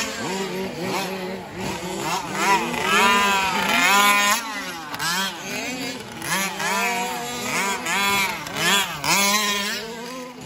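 Several 1/5-scale RC trucks' small two-stroke petrol engines racing, their buzzing pitch rising and falling again and again as they rev through the corners and jumps of a dirt track, the engines overlapping.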